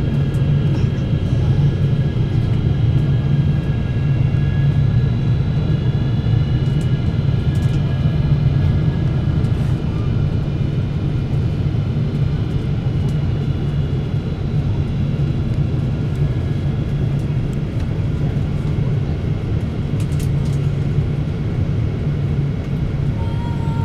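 Steady cabin noise inside a Japan Airlines Boeing 777-300 in flight on its approach: a dense, even low hum of the engines and airflow, with faint steady whining tones above it.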